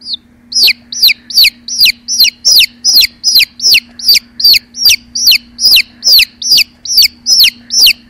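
Young bird chicks peeping loudly and steadily, about two or three short high peeps a second, each one sliding down in pitch.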